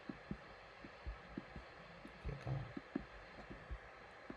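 Faint, irregular low thumps, a few each second, over a quiet steady hum.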